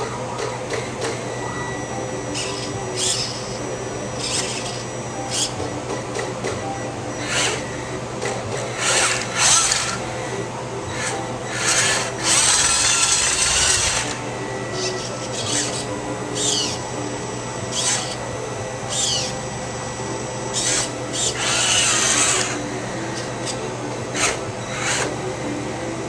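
The small electric motors and gearboxes of a Bruder toy bulldozer converted to radio control, whirring in short bursts of a fraction of a second to about two seconds as it is driven, over a steady low hum.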